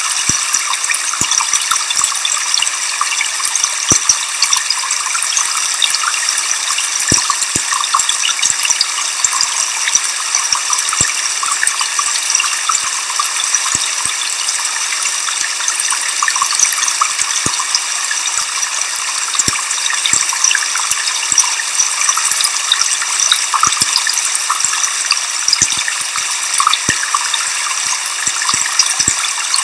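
Waterfall with white noise: a steady high hiss of falling water with little low rumble, and scattered faint ticks of spray.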